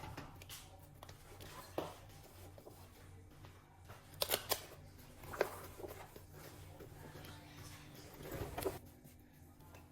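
Light handling noises from labelling a school bag and lunchbox: scattered clicks, taps and rustles over a low steady hum. A few sharper clicks come about four to five seconds in, and a cluster near the end.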